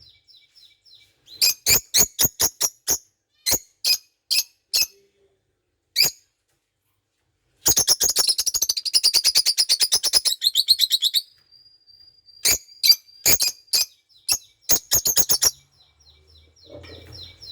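Lovebird chirping in strings of short, sharp, high-pitched chirps, with a long rapid run about halfway through and pauses between the bursts.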